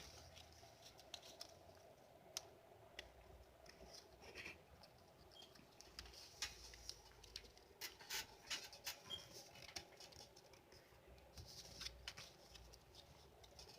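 Faint, scattered rustles and crinkles of origami paper being folded and creased by hand, a little busier about halfway through.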